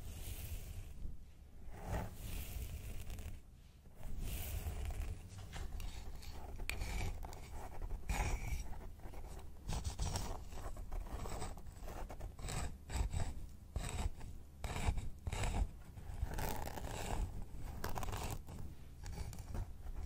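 Close-miked hair being parted and scratched, first by fingertips and then by a pointed wooden tool drawn through it: irregular crisp scratching and rustling strokes with short pauses between them.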